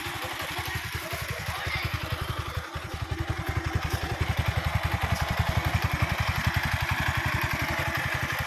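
The single-cylinder engine of a 2013 Bajaj Avenger 220 idling with a steady, even beat just after being revved, freshly serviced with new oil at 60,000 km.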